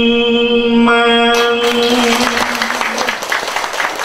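A singer holds the long closing note of a line of a Vietnamese Buddhist devotional song, steady in pitch, fading out about three seconds in. About a second and a half in, applause breaks out and runs on beneath and after the note.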